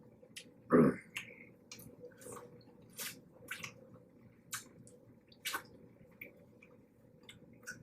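Wet eating sounds of a seafood boil eaten by hand: scattered lip smacks, squishes and sucking clicks from close-miked chewing of crab and mussels. One short, louder sound comes about a second in.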